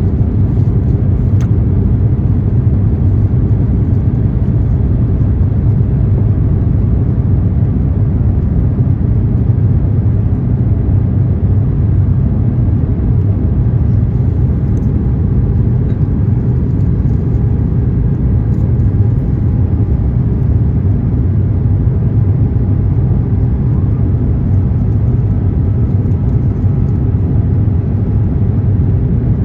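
Steady rumble and whir of an Airbus A350-900's Rolls-Royce Trent XWB engines and airflow, heard from inside the passenger cabin, with no change in level.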